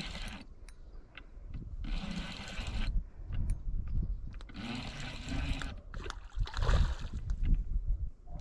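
A fishing reel being cranked in four short bursts of about a second each, with scattered clicks between and a low rumble of wind and handling on the microphone.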